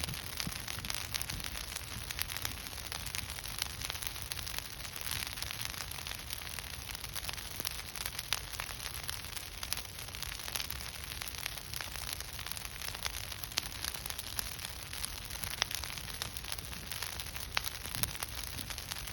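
Burning pile of spruce slash crackling: a steady crackle with frequent sharp pops over a low rumble.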